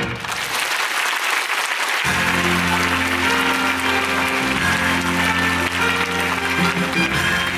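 Theatre audience applauding as the show music stops. About two seconds in, the curtain-call music starts up again and the applause carries on under it.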